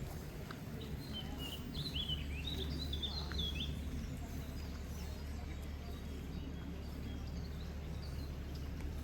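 Birds chirping: a quick run of high chirps in the first few seconds, then fainter scattered chirps, over a steady low background rumble.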